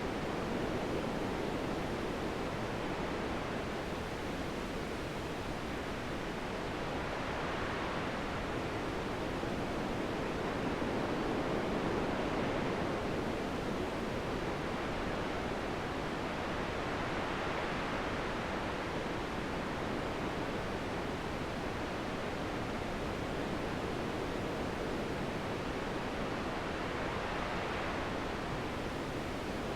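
Wind blowing steadily, swelling and easing in slow gusts every few seconds.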